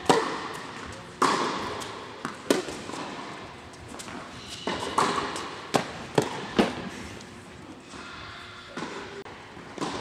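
Tennis ball struck by rackets and bouncing on an indoor hard court during a rally: a string of sharp, echoing pops, irregularly spaced, each ringing on in the large hall.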